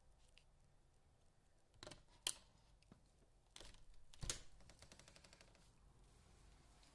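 Near silence broken by a few sharp clicks, the loudest about two seconds in, then a quick run of faint, evenly spaced ticks for about a second and a half.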